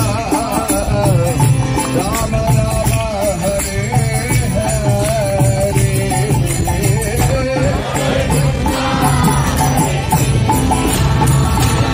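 Devotional song: a singing voice carrying a wavering melody over jingling hand percussion that keeps a steady beat.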